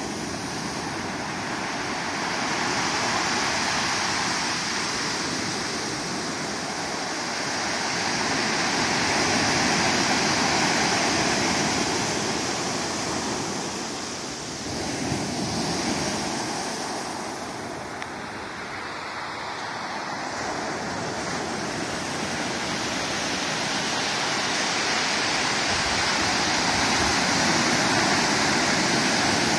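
Pacific surf breaking and washing up a beach of smooth stones as the tide comes in, a continuous rushing that swells and eases every several seconds with the waves.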